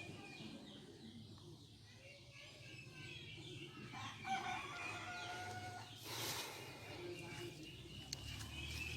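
A rooster crowing once, about four seconds in, over outdoor ambience with small birds chirping.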